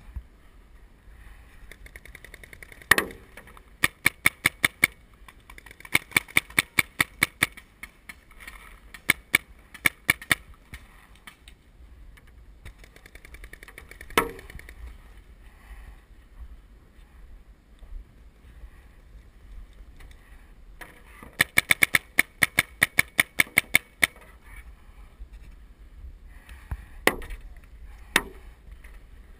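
Paintball markers firing in quick volleys of about five or six shots a second, in several separate bursts, the longest running about two and a half seconds near the last third. A few single, louder cracks stand apart between the volleys.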